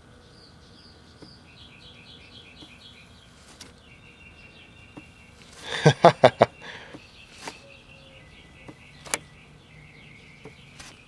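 Birds chirping in quick repeated notes, with a fast run of four loud sharp knocks about six seconds in and a few single faint clicks.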